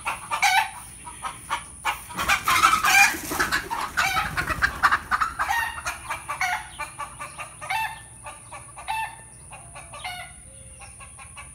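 Free-roaming chickens clucking in quick, repeated calls, with a rooster crowing. The calls are densest and loudest a few seconds in and thin out toward the end.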